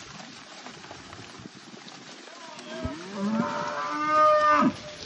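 One of the cattle in the driven herd mooing: a single loud call starting about three seconds in, rising in pitch, and cutting off sharply near the end.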